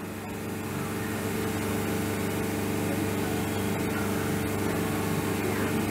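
A motor or engine running steadily: a low, even hum.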